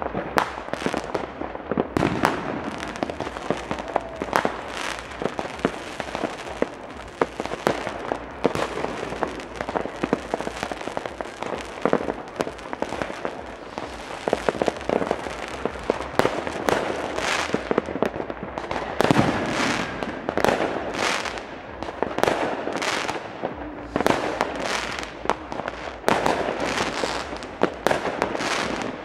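Many fireworks and firecrackers going off at once: a continuous, irregular barrage of overlapping bangs, pops and crackles.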